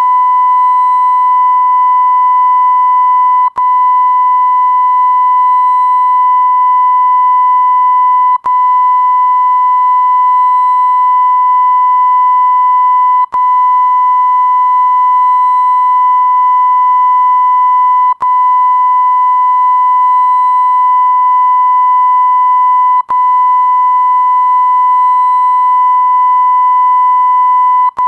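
Bleep sound effect: a loud, steady, single pure tone, held for about five seconds at a time and broken by a brief click-like gap between each stretch, six times over.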